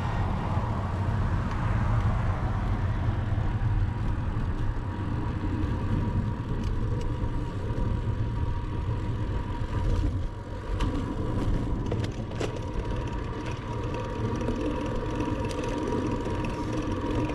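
Wind rushing over the microphone of a camera on a moving road bicycle, with low road and tyre rumble. A car passes in the first couple of seconds.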